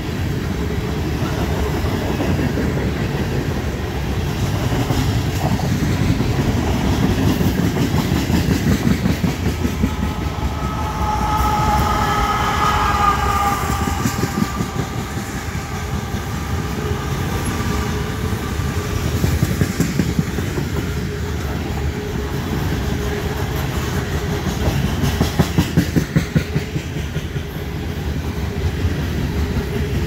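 Loaded coal hopper cars rolling past on steel wheels: a steady rumble with dense, rhythmic clickety-clack of wheels over the rail joints. A wavering squeal swells and fades about a third of the way through.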